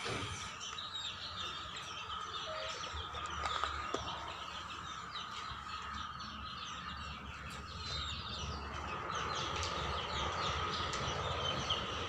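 A flock of young chickens peeping and chirping in many short, high calls without pause, over a steady faint whine.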